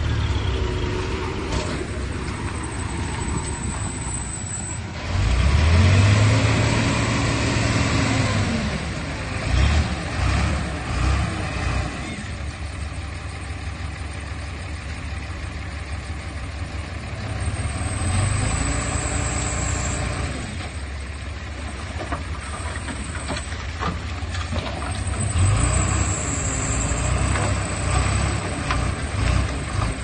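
Komatsu D31P bulldozer's diesel engine running steadily, revving up and easing back down three times.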